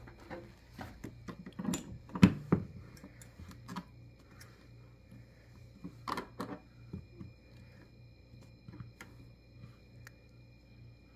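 Scattered knocks, taps and clicks, the loudest a thump about two seconds in and another cluster about six seconds in, over a faint steady hum.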